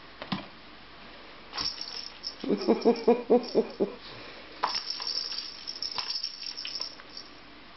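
Knocks and scratchy rustling from a cat pawing and scrabbling on the carpeted platform of a cat tree, with a short, quick run of stuttering vocal sounds near the middle.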